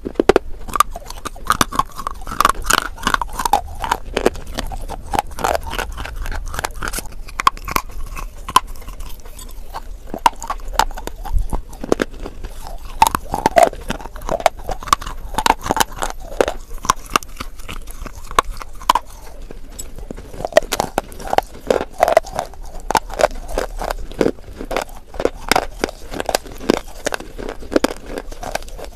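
Close-up biting and chewing of white khadi/shale stone clay bars: a dense run of crisp crunches and crackles, with wet mouth sounds between bites.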